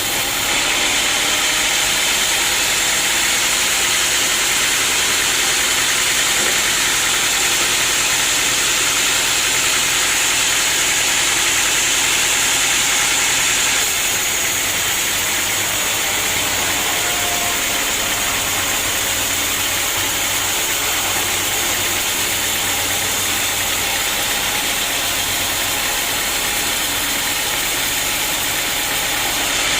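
Sawmill machinery running steadily, with a small drop in level about halfway through.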